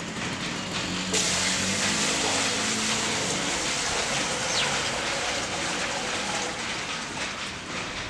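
Water poured from a plastic bucket into the tub of a small portable washing machine, a steady splashing gush from about a second in that tapers off near the end.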